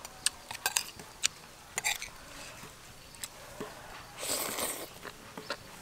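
Close-up eating sounds: a scatter of short clicks and smacks of chewing, and a slurp a little past four seconds in.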